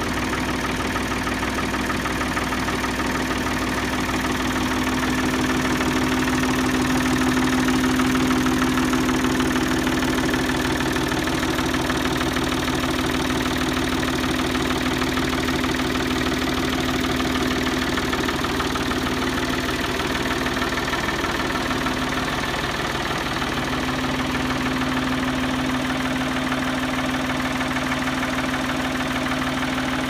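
1978 Ford 550 backhoe's engine idling steadily.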